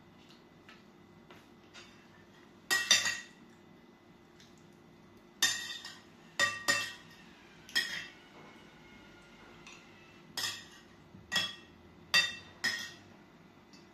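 Metal spoon and fork clinking and scraping against a glass plate while eating, about nine irregular clinks, some in quick pairs, each with a brief ring.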